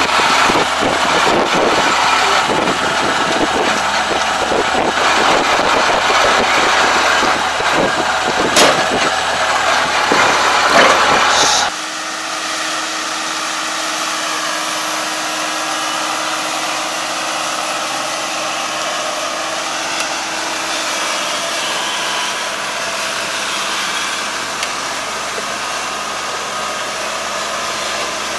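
ANR460 combine harvester running loud at close range, with a couple of sharp clicks. About twelve seconds in the sound drops abruptly to the combine's engine heard farther off: quieter and steady.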